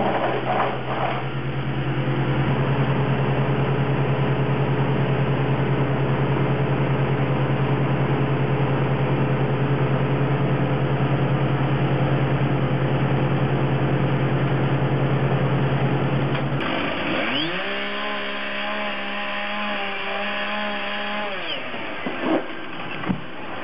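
A heavy engine of tree-removal machinery runs steadily, then cuts off sharply. A second machine follows whose pitch rises, holds for a few seconds and falls, with a few sharp knocks near the end.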